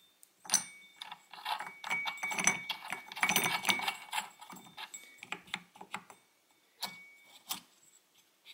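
A nut being threaded by hand onto the crankshaft stud inside the metal starter cup on a small gas generator's flywheel: a busy run of metallic clicks and scrapes with a faint ring, thinning to a few separate clicks in the second half.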